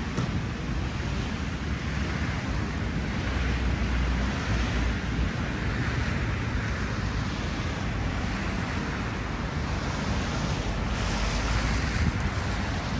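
Steady rushing roar of moving vehicles, swelling and easing.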